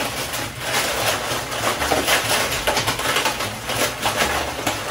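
Dry corn husks rustling and crackling in many small, quick crackles as gloved hands bundle them and press them down into a tub of hot water to soften them.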